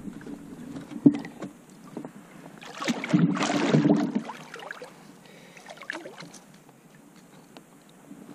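Handling noise as a largemouth bass is landed in an inflatable boat: a sharp knock about a second in, then a loud rustling flurry lasting over a second as the fish is taken in hand, followed by faint small clicks.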